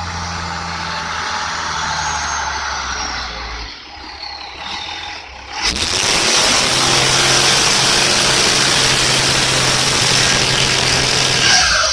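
Dodge Cummins straight-six turbodiesel pickup running with a falling turbo whistle, easing off about four seconds in, then suddenly brought to high revs about six seconds in and held loud and steady for a burnout attempt that a bad transmission hampers.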